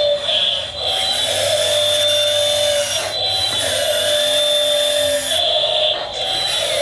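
Electric hydraulic pump of a 1/16 scale RC excavator whining steadily at a high pitch, with shifting tones as the machine works and brief dips in level.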